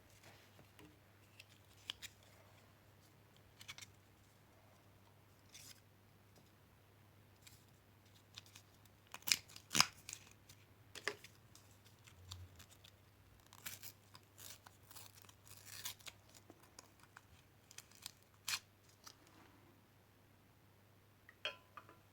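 Alka-Seltzer tablet fizzing in a vase of water: faint, irregular crackling pops and ticks of bursting bubbles, thickest through the middle stretch.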